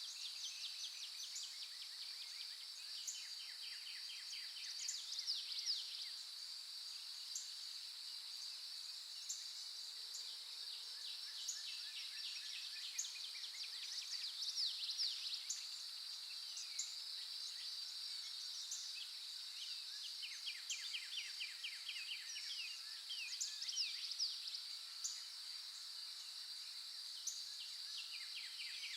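Songbirds singing a dawn chorus, with fast trills of rapidly repeated notes coming every few seconds over a steady, high-pitched insect drone.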